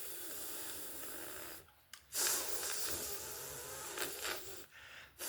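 A person holding the voiceless English 'th' sound /θ/, air hissing out over the tongue between the teeth with no voicing, exaggerated for teaching. It comes in two long stretches with a brief break about a second and a half in.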